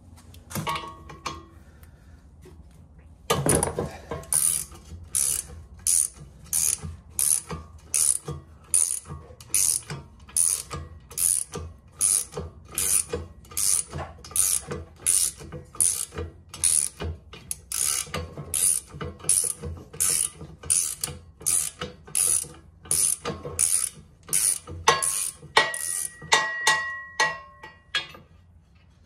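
Hand socket ratchet backing out the rear hitch bolt on a garden-tractor frame. After a few seconds it settles into steady strokes of clicking, about one and a half strokes a second, with a brief squeal near the end.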